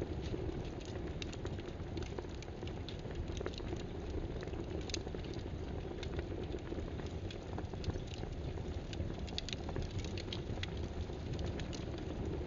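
Steady hiss-like background noise with many small, irregular clicks and ticks scattered through it.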